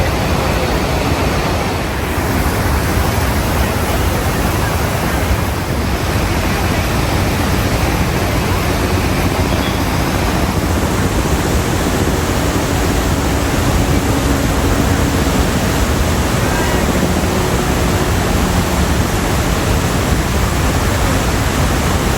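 Iguaçu Falls: a loud, steady rush of falling water.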